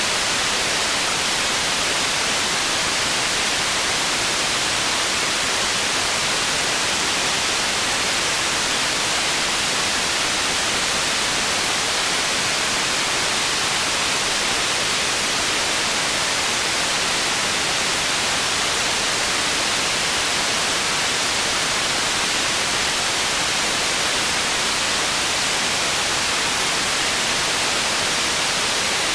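Processed white noise for tinnitus masking: a steady, even hiss, strongest in the upper treble and thin in the bass.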